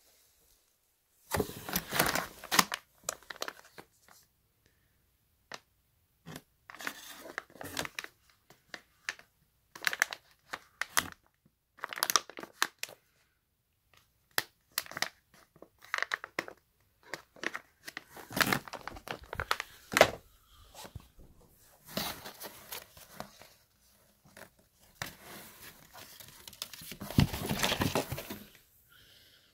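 Plastic packaging bags crinkling and rustling as items are handled and lifted out of a cardboard box, in irregular bursts with short pauses between.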